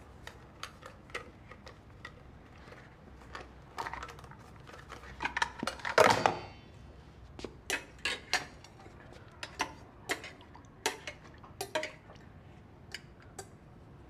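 A metal spoon clinking and scraping against a metal bowl in a run of light, irregular clinks, with one louder clink about six seconds in that rings briefly.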